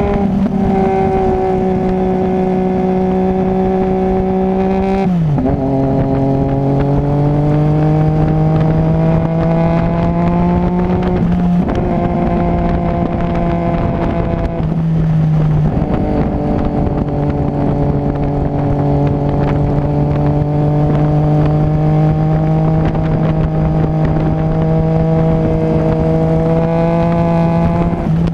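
Motorcycle engine running under way with steady wind rush. About five seconds in it shifts up a gear, the pitch dropping sharply, then climbing slowly as the bike pulls; two smaller dips in pitch follow later.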